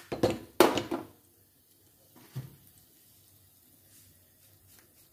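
A spice container being handled: a quick run of sharp knocks and clatter in the first second, then one softer knock about two and a half seconds in, and a few faint ticks near the end.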